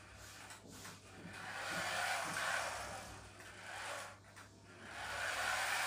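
Toy remote-control car driving across a tiled floor: its small motor and gears whirring as the tyres roll. The sound swells about two seconds in, drops off a little after four seconds, and rises again near the end.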